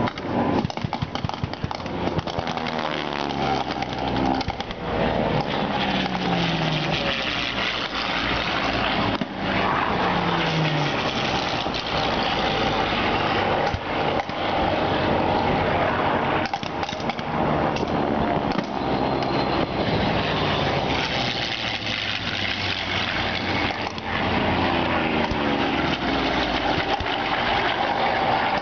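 Harvard trainers' radial piston engines making repeated low passes, the engine note falling each time one goes by. A few sharp bangs from pyrotechnic charges are heard in between.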